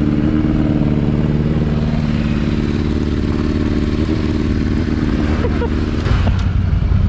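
A motorcycle engine running under way with a steady note. About six seconds in, the note drops lower and gets a little louder.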